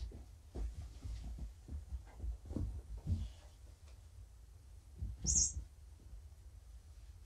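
Soft rustling and dull thumps as a fabric cat bed and a kitten are handled on a rug, with one short, high squeak about five seconds in.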